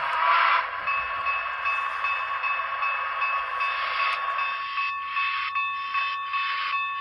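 Onboard sound system of a Broadway Limited HO-scale C&O 614 steam locomotive under way: hissing steam chuffs with a steady high ringing tone over them from about a second in. The chuffs turn into distinct beats in the second half.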